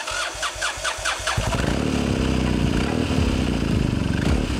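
Engrich ART 1200cc 360° parallel-twin motorcycle engine being started: the starter cranks it in quick, even pulses, and about a second and a half in the engine catches and settles into a steady run.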